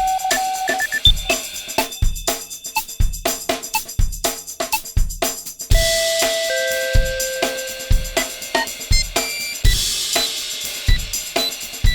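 A montage of assorted electronic beeps: short pips of different pitches and a few longer held tones about halfway through, over a steady drum-kit beat of kick drum and hi-hat.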